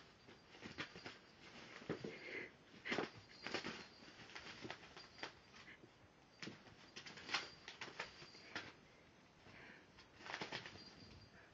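A kitten scrabbling at and pawing a fabric cat tunnel on a sheet-covered floor: irregular bursts of rustling and scratching with short sharp clicks.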